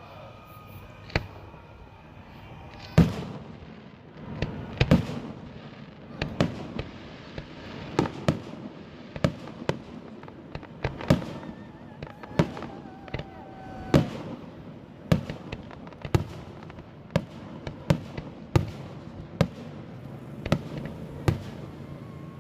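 Fireworks display: aerial shells bursting one after another, about one bang a second, the loudest about three seconds in.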